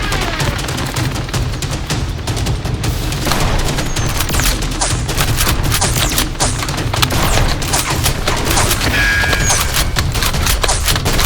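Rapid, continuous fire from toy blasters, many quick shots in a row, over background action music.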